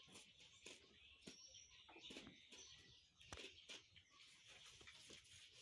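Faint bird chirps over scattered light scratches and clicks of cardboard being marked and handled.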